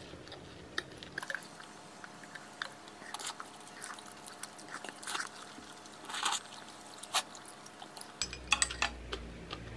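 Close-up eating sounds of thick Chinese glass noodles from malatang: a slurp, then chewing, with scattered soft wet smacks and clicks.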